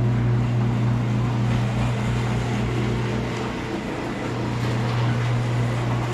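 A car engine running steadily: a loud, even low drone with a constant hum and no change in pitch.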